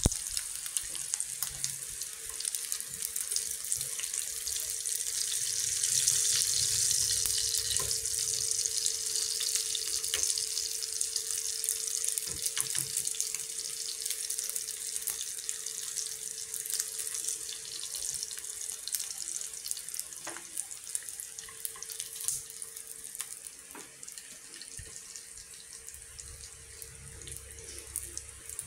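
Dried tra catfish pieces sizzling in hot oil in a frying pan, a steady hiss that swells a few seconds in and then slowly eases, with scattered sharp crackles and ticks. A faint steady hum runs underneath.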